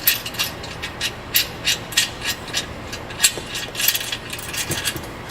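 Hand ratchet clicking in a steady run of about three sharp clicks a second as it turns the bolt back out of a freshly squeezed steel rivet nut, with a quicker flurry of clicks near the end.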